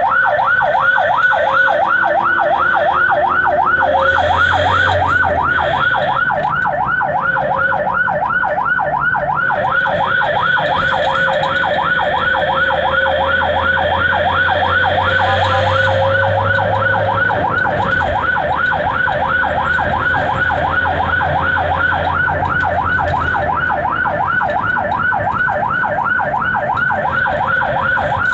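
Ambulance electronic siren in rapid yelp mode, about four rising-and-falling sweeps a second, heard from inside the cab with the engine running beneath it.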